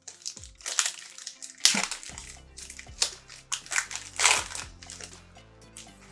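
Rustling and crinkling of trading cards and their foil pack wrapper being handled, in a run of short bursts. Quiet background music runs under it.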